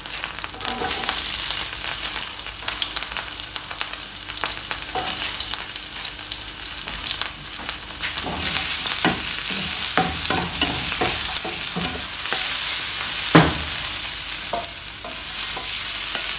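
Chopped red onions sizzling in hot oil in a nonstick frying pan. The sizzle sets in about a second in and grows louder about halfway through, with a spatula knocking and scraping the pan as the onions are stirred.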